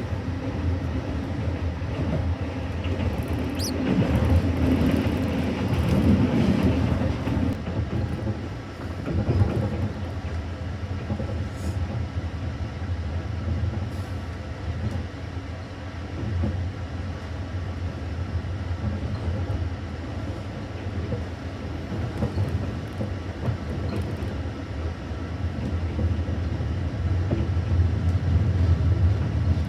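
Passenger train TN4 running on the rails, a steady low rumble that swells louder for a few seconds near the start.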